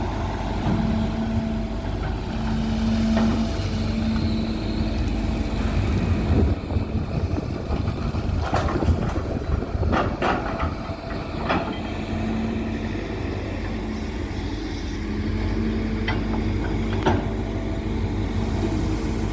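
Hydraulic excavator's diesel engine running steadily, with a run of sharp knocks and clanks partway through.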